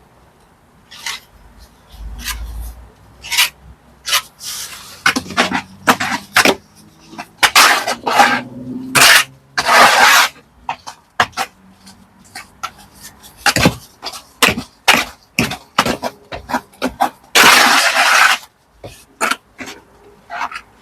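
Irregular short rasping strokes of a hand tool or brush worked on brickwork, some lasting about a second.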